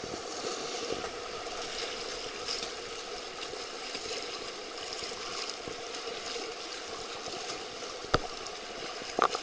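Whitewater rapids rushing steadily around the kayaks, with one sharp knock about eight seconds in.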